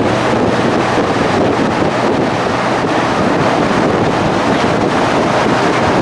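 Steady wind rushing over the microphone of a moving car, over the car's road and engine noise.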